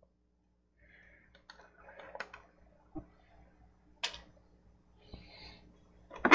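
Scattered light clicks and rustling from handling a wire and a hand wire stripper while stripping the wire's insulation, with a sharper click about four seconds in.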